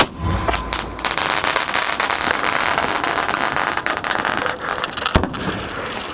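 Fireworks going off at close range: a sharp bang at the start, then dense crackling for about four seconds, and another bang about five seconds in.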